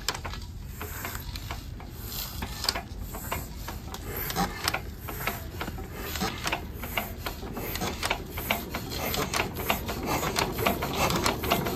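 Single-cylinder stationary diesel engine of an irrigation pump set turning over at low speed with its flywheel spinning, giving a rhythmic mechanical clatter of a few clicks a second over a low rumble. It grows gradually louder toward the end.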